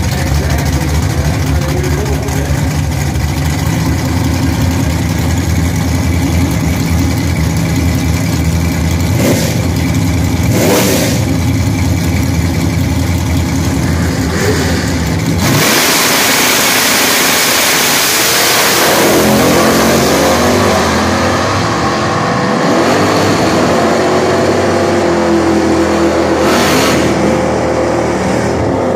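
Pontiac Firebird drag car's engine idling loudly at the starting line, with a few brief throttle blips. About halfway through it launches at full throttle with a sudden surge. The engine note then rises and falls through the gear changes as the car pulls away down the strip.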